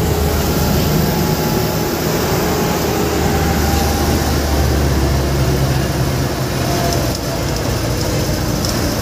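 Bus engine and road noise heard from inside the passenger cabin: a steady low rumble under a continuous broad rush of wind and road noise through the open windows.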